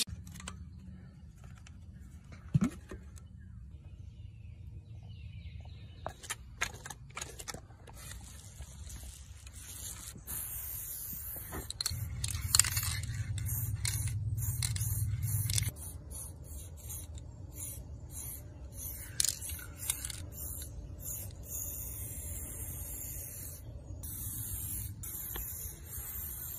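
Scattered clicks and scrapes, then an aerosol spray-paint can hissing in long bursts from about ten seconds in.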